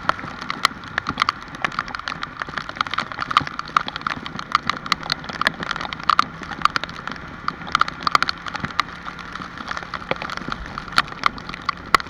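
Rain falling, with large drops tapping irregularly and sharply on a surface close to the microphone.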